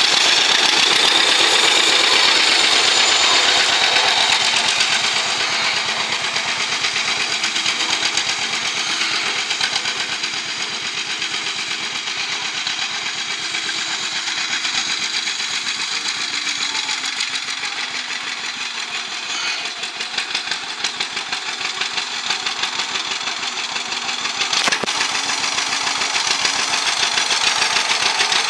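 John Deere 50's two-cylinder engine running with a rapid, even beat of exhaust pulses as the tractor drives off and comes back. It fades in the middle and grows louder again near the end.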